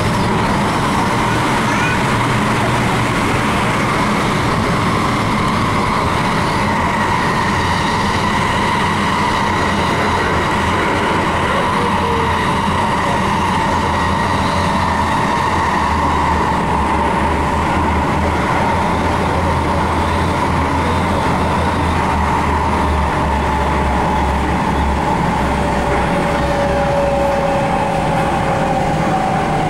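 MTR Tung Chung Line K-Train running between stations, heard from inside the car: a steady rumble of wheels on the track under a faint motor whine that sinks slightly in pitch near the end.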